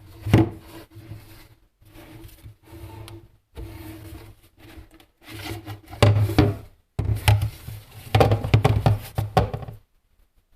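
Hard parts being handled and worked by hand: irregular rubbing and scraping with knocks and clicks, in bursts that grow busier in the second half and stop abruptly shortly before the end.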